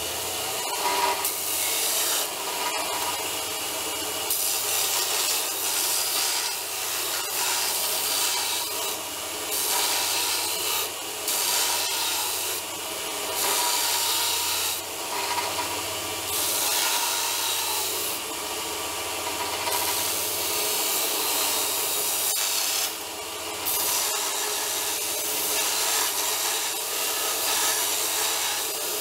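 Burr King model 562 belt grinder running, with a flat metal bar held against the belt: a harsh grinding hiss that comes and goes with each pass, over the steady hum of the motor.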